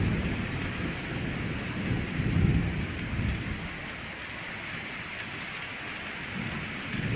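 Stormy weather: a steady rain-like hiss under low rumbles that swell and fade, strongest at the start and about two and a half seconds in, quieter in the second half.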